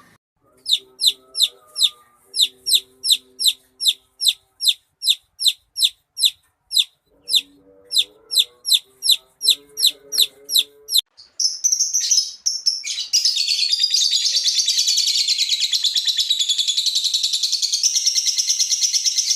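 Birds chirping: first one bird repeats a sharp, high chirp about three times a second, with fainter lower calls underneath, then a little after halfway a dense chorus of many birds chirping takes over.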